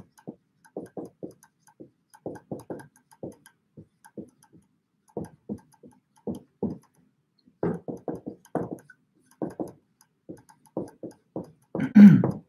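Dry-erase marker writing on a whiteboard: a string of short, irregular marker strokes and squeaks as words are written out, with a louder sound near the end.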